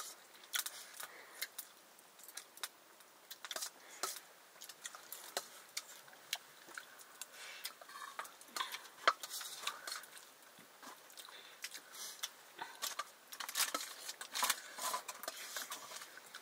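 Utensils clinking and scraping against dishes in irregular, scattered strikes, the sound of serving or eating a meal.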